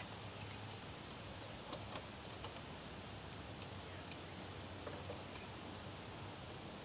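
Steady high-pitched drone of insects, with a few faint clicks and taps as the plastic and metal parts of a teleprompter and its fabric hood are handled.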